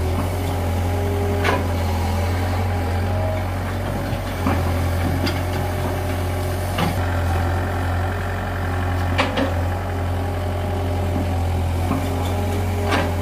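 Kato HD250 crawler excavator's diesel engine running steadily under work, with a handful of sharp knocks and clatters as the bucket dumps soil and stones into a tractor trolley.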